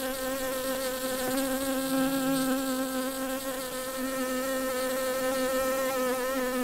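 Honeybees buzzing: a steady, slightly wavering insect hum.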